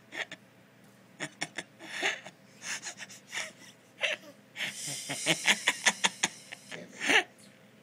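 Baby's breathy gasps and giggles while his feet are being tickled: short puffs of breath that quicken into a rapid run of gasping laughter about five seconds in.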